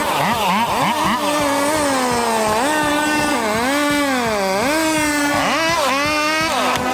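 Chainsaw engine running under load, its pitch dipping and rising again and again as the chain cuts into the wood and frees up.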